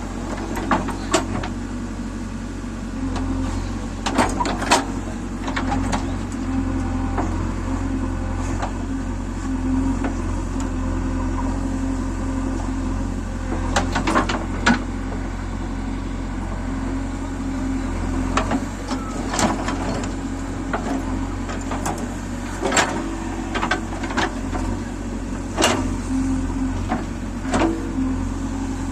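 JCB 3DX backhoe loader's diesel engine running steadily while digging, with repeated sharp metallic clanks and knocks, several coming in quick pairs.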